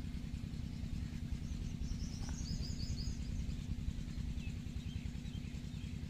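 Steady low rumble of outdoor ambience, with a small bird giving one short trill of rapid high notes about two and a half seconds in.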